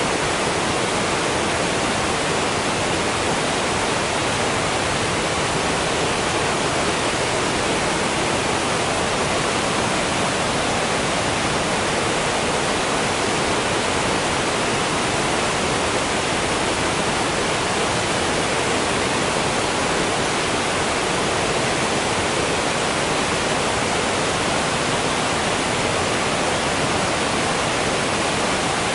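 Waterfall: water falling and splashing in a steady, even rush.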